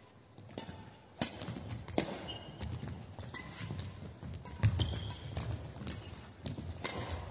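Badminton doubles rally: sharp racket hits on the shuttlecock about once a second, with brief shoe squeaks and footfalls on the court floor between them.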